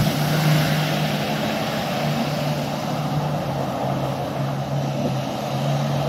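A 4x4 pickup's engine held at steady high revs as it ploughs through a muddy pond, with the rush of water and mud spraying off the truck.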